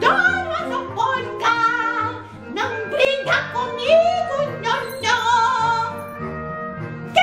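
A woman singing short operatic phrases with a wide vibrato over sustained instrumental accompaniment.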